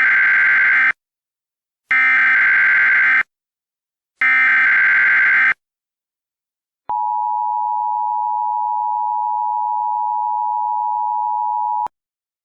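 Emergency Alert System SAME header: three loud, harsh digital data bursts about a second apart, then the EAS two-tone attention signal (853 and 960 Hz together) held steady for about five seconds before cutting off abruptly. This marks the start of a new alert message.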